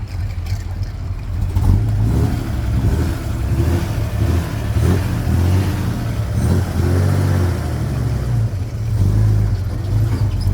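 Six-cylinder engine, apparently a Chevrolet Opala's straight-six, running and being revved a few times, the pitch rising and falling.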